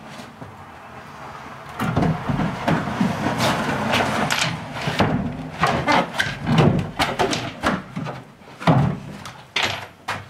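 A plywood pantry cabinet being tilted and shoved into place: wood scraping against wood and the floor, with repeated knocks and bumps. It starts about two seconds in.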